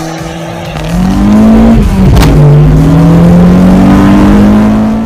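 Car engine accelerating hard: its pitch holds, then climbs, drops sharply about two seconds in as at an upshift, and climbs again.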